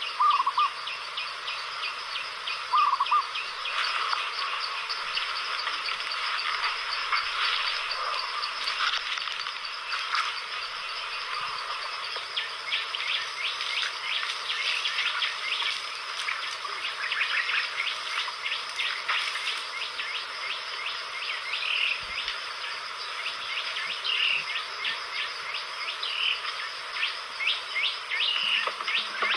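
A dense chorus of small calling animals: rapid trilling and clicking throughout. Short, louder chirping calls stand out twice early on and then repeat every couple of seconds near the end.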